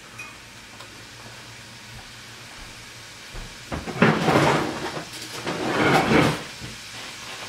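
A knob of cold butter melting into a reduced pan sauce in a cast iron skillet, with a faint steady sizzle. Starting about three and a half seconds in, two loud noisy rustling or scraping sounds of about a second each, one after the other, from a source that is not in the picture.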